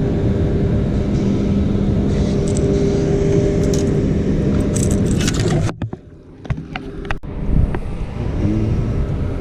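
Boat motor running with a steady hum, cutting off about six seconds in. After it, a few sharp knocks and rattles follow in the quiet.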